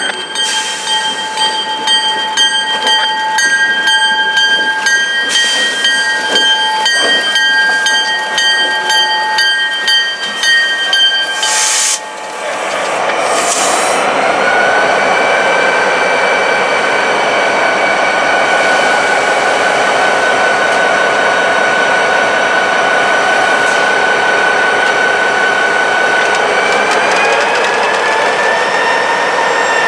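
Freight train rolling past, loud, with several steady high whining tones and occasional clicks over the noise of the cars. About twelve seconds in, the sound shifts to a steadier, louder rush with a single held whine that rises in pitch near the end.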